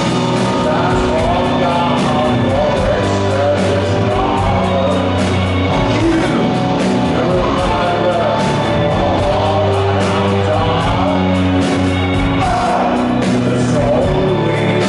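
Rock band playing live: a male singer sings over electric bass, guitar and drums, heard loud from the audience.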